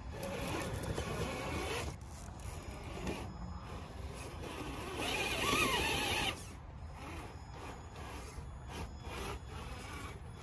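Traxxas TRX-4 2021 Bronco RC crawler's electric motor and geared drivetrain whining as it crawls over rocks. The whine comes and goes, and is loudest about five to six seconds in, where its pitch rises and then falls.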